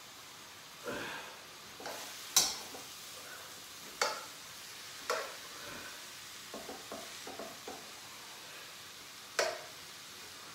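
Chicken and vegetable stir-fry sizzling faintly in a pan while a utensil stirs it, knocking against the pan: about half a dozen sharp knocks, with a quick run of small taps in the middle.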